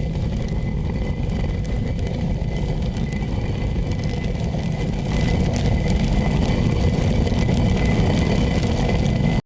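Millstones grinding wheat into flour: a steady, grainy stone-on-stone rumble that grows a little louder about halfway through and stops abruptly.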